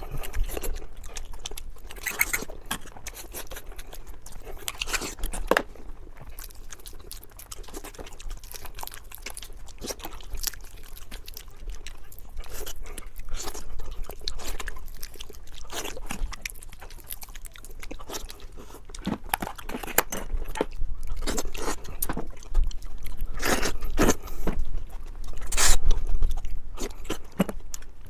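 Close-miked eating: chewing and biting with many short wet clicks and crunches, growing busier and louder in the last third.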